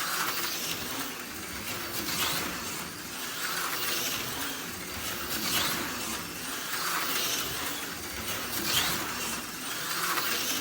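HO-scale slot car running laps on a plastic track. Its small electric motor whines and its wheels hiss, swelling and fading each time it passes, about every one and a half to two seconds.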